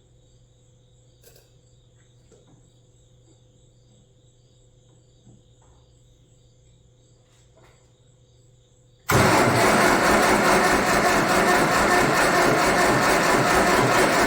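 Crickets chirping steadily, then about nine seconds in a loud, harsh mechanical noise starts suddenly and runs for about five seconds before falling away.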